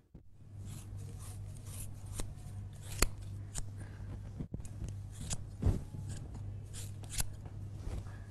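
Scissors snipping through long hair in a string of separate snips, over a low steady hum.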